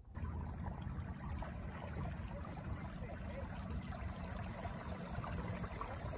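Water lapping and trickling close by, over a low steady rumble.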